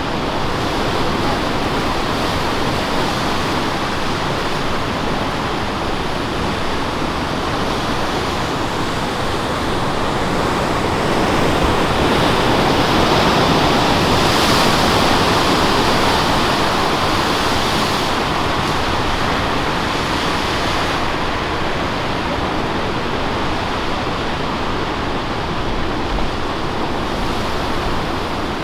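Steady rush of ocean surf breaking, swelling louder for a few seconds around the middle as bigger waves come through.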